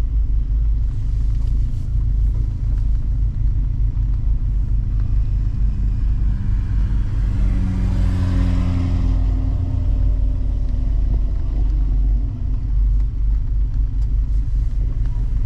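Mazda MX-5 Miata (ND) running with a steady low rumble, with a louder swell of engine and tyre noise around the middle that fades again.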